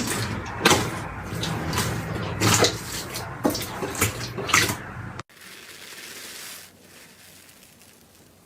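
Slime being squeezed and pressed by hand: wet squishing with many quick crackles and pops. It cuts off abruptly about five seconds in, leaving a faint hiss.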